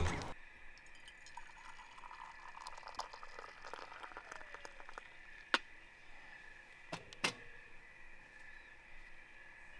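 Hot coffee poured from a stainless camp coffee pot into an enamel mug, with small crackles and three sharp clinks, one about five and a half seconds in and two close together about seven seconds in, over a faint steady high tone.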